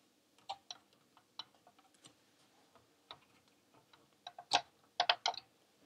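Faint, scattered clicks and taps of a plastic-package 74LS138 chip being pressed into its IC socket on a circuit board. The clicks come a few at a time, with the loudest and most closely bunched ones about four and a half to five seconds in.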